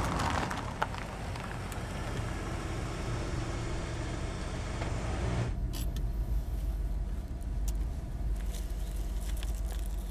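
Sedan's engine and tyre noise on a rural road, heard from outside the car. About five and a half seconds in, it cuts to the low, steady rumble heard inside the car's cabin.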